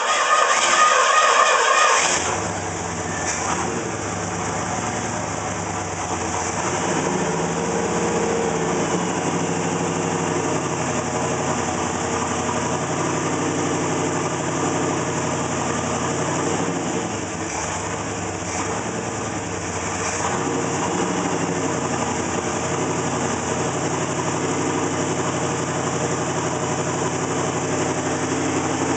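A 301 engine catching and starting, running louder and faster for about two seconds, then settling into a steady idle, which is described as rough.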